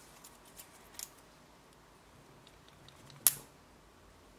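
Thin metal strip being pulled and flexed against the end of an 18650 lithium cell, with a few small clicks, then one sharp snap a little over three seconds in as the capacitor-discharge spot weld tears loose: the joint is too weak to hold.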